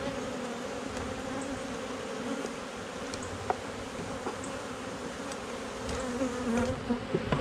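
Many honeybees buzzing in a steady hum around an opened hive, with one light click about three and a half seconds in.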